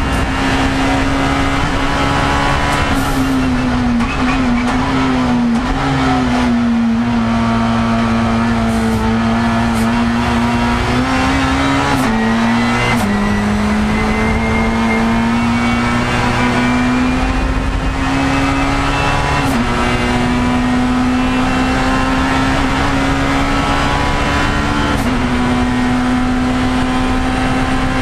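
Race car engine heard from inside the cockpit, running hard at a steady high note, with several brief dips and abrupt steps in pitch as it changes gear or lifts, over loud road and tyre noise.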